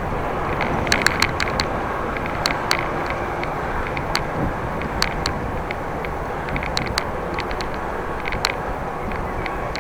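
Wind rushing over the microphone with tyre rumble from a bicycle ridden fast into a headwind, broken by irregular sharp clicks and rattles.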